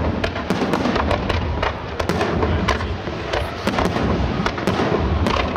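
Fireworks display: many aerial shells bursting in quick succession, with dense crackling and sharp bangs over a continuous low boom.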